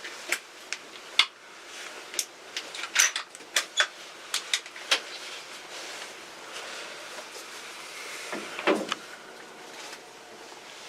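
Scattered sharp clicks and knocks, about a dozen in the first five seconds and fewer after, over a faint steady hiss: handling noise of gear inside a hunting blind.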